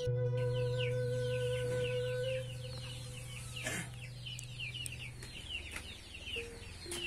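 Chicks peeping on and on, many short falling cheeps a second, over soft background music with long held notes. A brief falling swish sounds near the middle.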